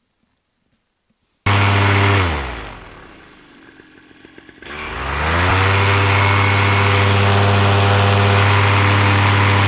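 Paramotor engine and propeller, cutting in suddenly at high revs, dropping in pitch as the throttle eases off, then revving back up and holding steady at high power.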